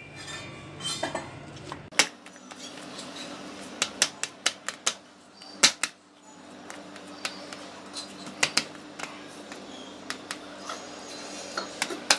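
A hand patting and pressing cooked lentil paste flat on a steel plate: irregular sharp taps and clicks of fingers and plate, some in quick runs, over a faint steady hum.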